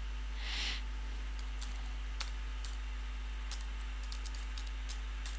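Computer keyboard typing: faint, irregularly spaced keystrokes as a word is typed, beginning about a second and a half in, over a steady low hum.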